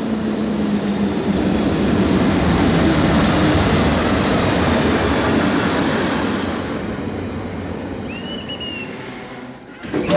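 Electric train hauled by a Swiss Federal Railways (SBB) locomotive passing by: a dense rumble and rattle that builds over the first few seconds, then fades away as the train recedes. A few sharp knocks come at the very end.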